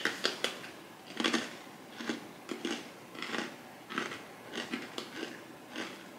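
Someone chewing a cheese-topped cracker with the mouth close to the microphone: irregular crisp crunches, about three or four a second.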